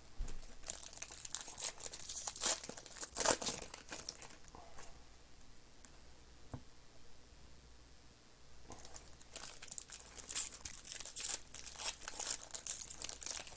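Trading-card pack wrappers being torn open and crinkled by hand, in two spells of crackly rustling with a quieter stretch between.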